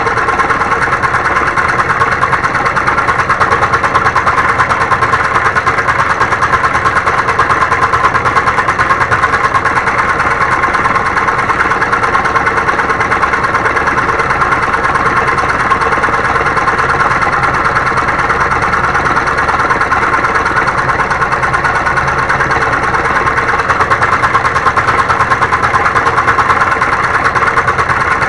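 Homemade motor-driven scroll saw running steadily, its blade reciprocating rapidly as it cuts wood.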